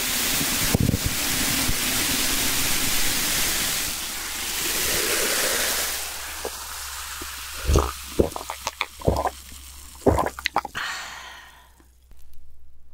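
Cola poured into a glass mug, fizzing with a steady hiss for about the first six seconds. Then it is drunk in several gulps, with small clicks and pops.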